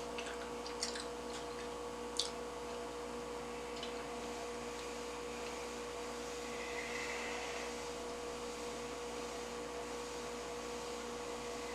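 Steady background hum with a constant tone, like a fan or appliance running, with a few faint clicks in the first few seconds.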